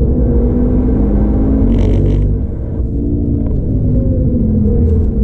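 A Stage 2 tuned 2013 Audi TT RS's turbocharged five-cylinder engine is heard from inside the cabin, pulling steadily at speed. There is a short hiss about two seconds in, and the engine eases off briefly just after before pulling again.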